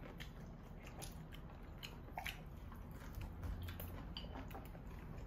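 People chewing and biting into sauced fried chicken: soft, scattered mouth sounds with small clicks.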